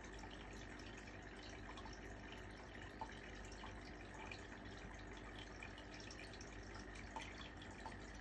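Aquarium filter running: a faint, steady trickle of water with small drips, and a few soft ticks about three seconds in and near the end.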